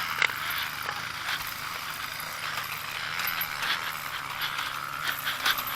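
Trail dirt bike's engine running at low revs, with scattered clicking and rattling.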